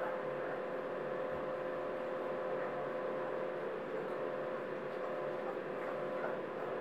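Steady background hum with a constant mid-pitched tone over an even hiss, like a room appliance running.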